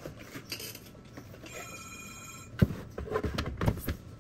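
Sealed lead-acid batteries being handled in a UPS's sheet-metal battery compartment: a sharp knock about two and a half seconds in, then several lighter clunks. Just before the knock, an electronic ring tone sounds for about a second.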